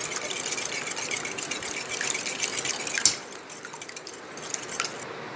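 Wire hand whisk beating raw eggs in a glass bowl: fast, continuous clicking and sloshing that stops about three seconds in, leaving only faint scattered clicks.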